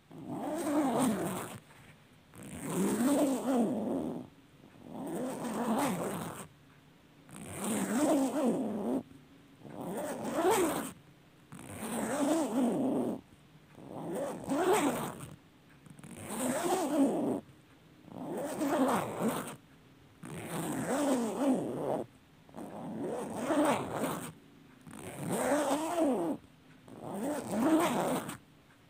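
A zipper pulled open or shut over and over, one long rasping pull roughly every two seconds with short pauses between.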